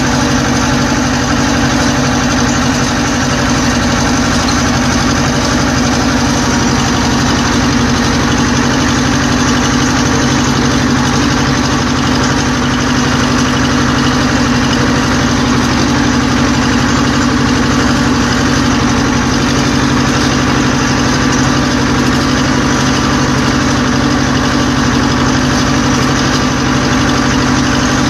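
Vladimirets T-25A2 tractor's two-cylinder air-cooled diesel running loud and steady at an unchanging engine speed.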